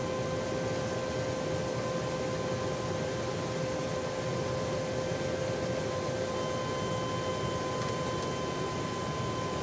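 Steady rush of airflow and engine noise heard inside a KC-10 Extender tanker in flight, with a few steady whining tones. About six seconds in the whine changes: a higher tone comes in and the lowest one fades.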